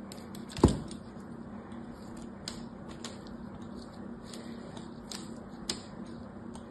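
A bar of hard soap set down with a sharp knock about half a second in, then a fingernail scratching and tapping along the soap's surface in short irregular scrapes, over a faint steady hum.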